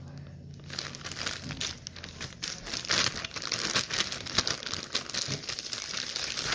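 Slime being squeezed and worked by hand: a dense run of small wet crackles and pops that starts about a second in and gets louder around three seconds in.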